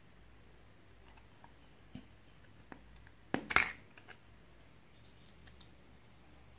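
Fingers working jelly-like store-bought slime out of its thin clear plastic cup: a few faint clicks, then a short crackling squelch of several quick pops a little past halfway, the loudest sound, with a few light ticks afterwards.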